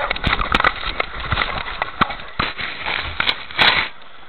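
Rapid knocks, scrapes and crackle from a camera strapped to a dog, jostled and rubbing as the dog moves. The noise is loudest near the end, then cuts off suddenly.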